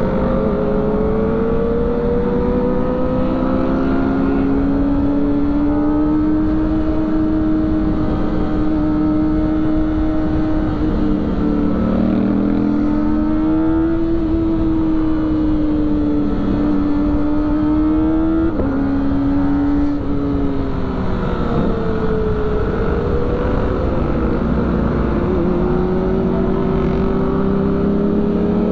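Kawasaki Ninja ZX-25R's inline-four engine running at high revs under way, heard with rushing wind. The engine note rises and falls with the throttle and drops sharply about two-thirds of the way through, as at a gear change.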